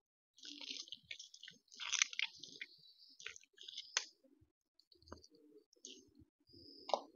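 A lime being squeezed by hand over a plate of rice and curry: faint wet squelches and small crackly clicks in short irregular bursts, with a sharper click about four seconds in and another near the end.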